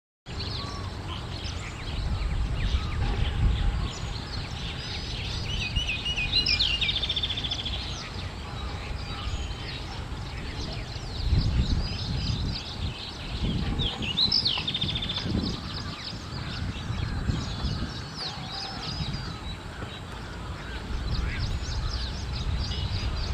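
Small birds chirping and calling throughout, with a distinct short song phrase heard twice, about six and fourteen seconds in, over a steady low rumble.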